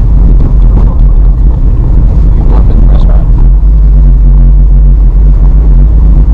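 A car driving slowly over a brick-paved street, heard from inside the cabin: a loud, steady low rumble of tyres and engine.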